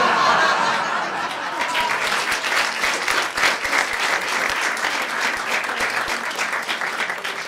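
Comedy club audience applauding a punchline: a dense run of clapping, loudest at the start and then steady.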